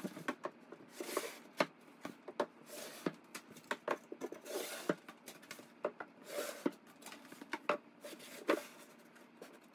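Divider panels being slid into grooves in a kitchen cabinet: many light knocks and clicks with short scraping rubs between them.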